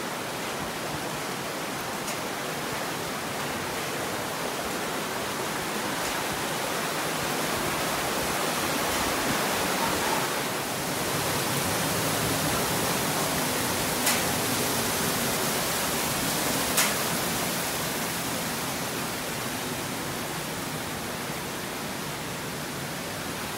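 Steady rush of a mountain stream and small waterfalls, swelling slightly midway, with two short sharp clicks in the second half.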